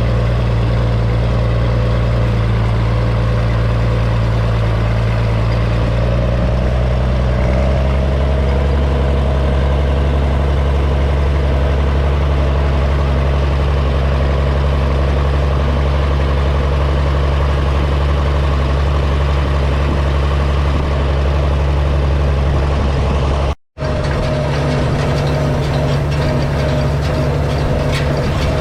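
Farm tractor engine running steadily, a deep continuous drone with a slight shift in pitch early on. It cuts out abruptly for a moment near the end and then carries on.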